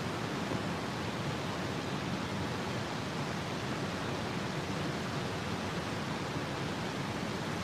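Steady, even rushing noise with no distinct events, outdoor background ambience.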